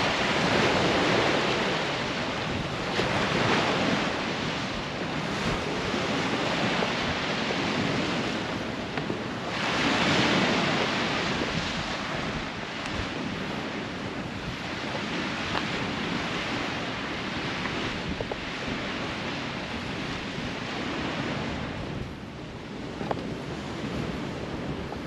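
Small waves breaking and washing up a sandy beach, surging and easing a few times, with wind buffeting the microphone.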